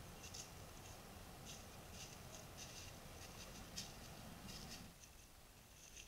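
Faint, scattered rustles and crackles, several a second, typical of an animal's footsteps in dry leaf litter and grass close to a trail camera.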